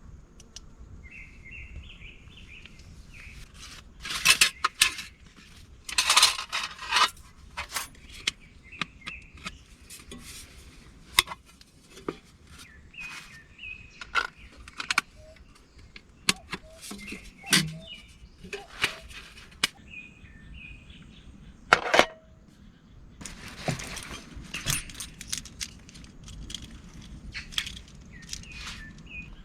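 Irregular clinks, taps and clatters of camp cookware and utensils being handled, with the louder clatters about four to seven seconds in and again near twenty-two seconds. Small birds chirp intermittently in the background.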